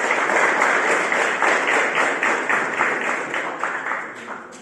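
Crowd applauding with many hands clapping, dying away near the end.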